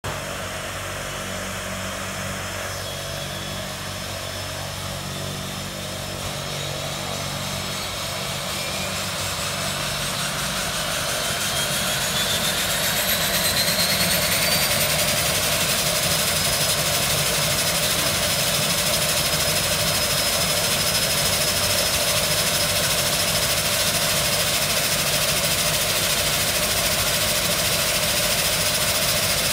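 De Havilland Canada DHC-6 Twin Otter's Pratt & Whitney Canada PT6A turboprop engine starting up. Its turbine whine climbs steadily in pitch and loudness for about twelve seconds. It then settles into a steady high whine with propeller and engine noise as the engine reaches idle.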